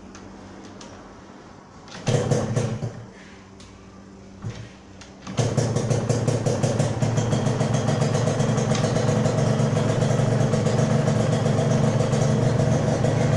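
Yamaha TZM 150's single-cylinder two-stroke engine being kick-started for the first time after ten years laid up, with a larger pilot jet fitted to richen the dry engine. It fires briefly about two seconds in, coughs once more, then catches about five seconds in and keeps running with a fast, even beat.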